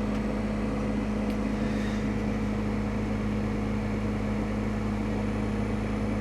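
Tractor engine pulling the grain cart, running at a steady speed with an even, unchanging hum.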